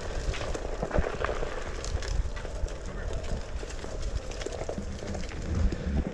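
Wind rumbling on the microphone while riding over rough ground, with irregular knocks and rattles and a faint steady hum underneath.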